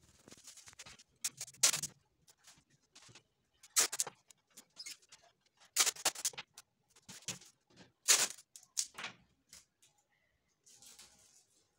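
Paper kite and adhesive tape being handled while gold tape is stuck on as decoration: crisp crinkling and tearing in short bursts with quiet gaps between, the loudest about a second and a half, four, six and eight seconds in.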